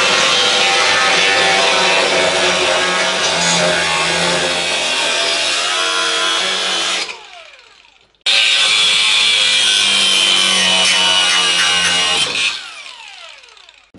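Cordless angle grinder cutting through old car-body sheet steel. It runs steadily for about seven seconds and winds down. About a second later it starts again, cuts for another four seconds, then spins down.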